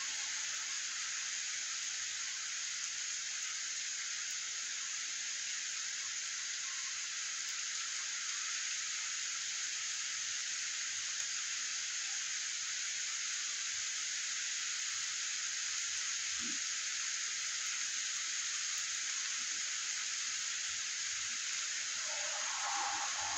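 Rain falling on a wet street, a steady even hiss. Near the end a passing vehicle starts to be heard, growing louder.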